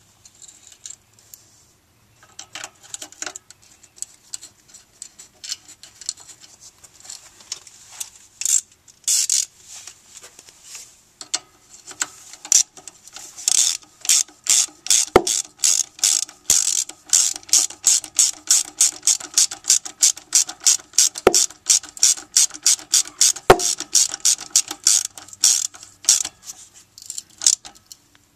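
Socket ratchet wrench clicking as it turns the bolt on the brake hose bracket of a Toyota Camry's rear strut. There are scattered clicks at first, then from about twelve seconds in a steady run of ratchet strokes, about two a second.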